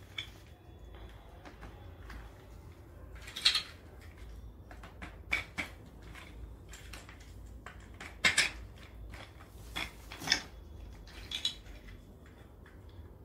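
Plastic clicks and knocks as small plastic wheels are handled and pushed into the holes of a plastic baby walker frame. They come singly or in pairs every second or so, with the loudest about three and a half seconds in and about eight seconds in.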